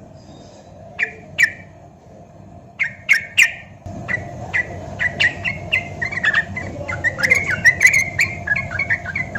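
Yellow-vented bulbul (trucukan) singing: a few separate chirpy notes at first, then from about four seconds in a quick, busy run of bubbling chirps. A steady background hum comes in at the same point.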